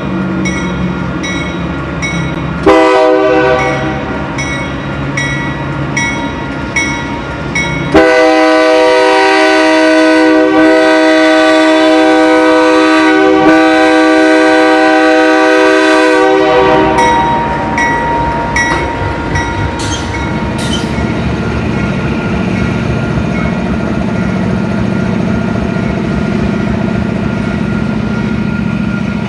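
A passing train sounds its locomotive air horn: a short blast about three seconds in, then one long blast of about eight seconds. Under it run the low rumble of the train and a bell ringing about two and a half strokes a second, which fades out after the long blast.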